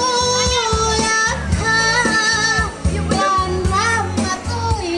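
A woman singing karaoke into a microphone through a loudspeaker, holding long notes with vibrato over a backing track with a steady beat.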